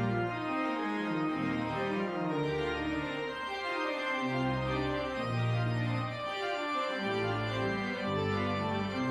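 Organ postlude closing the service: full, sustained chords over low bass notes that change every second or so.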